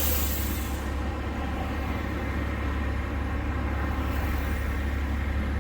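Heavy truck's diesel engine idling with a steady low hum, a brief hiss of air right at the start.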